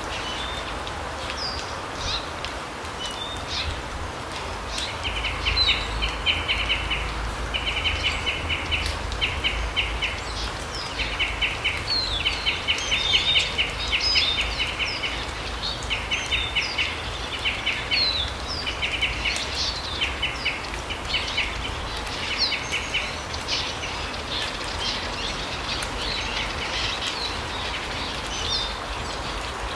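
Small songbirds calling in a forest: scattered short, high calls throughout, and repeated bursts of rapid chattering trills through much of the middle, over a steady background hiss.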